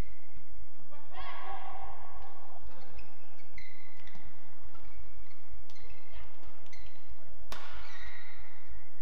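Badminton rally: sharp racket hits on the shuttlecock, court shoes squeaking and feet thudding on the court mat, with one loud hit about seven and a half seconds in.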